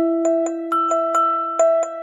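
Hand-cranked music box playing a tune: its steel comb teeth plucked at about two notes a second, each note ringing on under the next.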